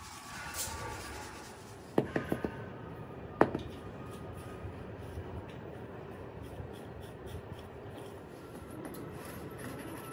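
Steady workshop background noise with a quick run of four or five sharp knocks about two seconds in, then a single louder knock a second and a half later.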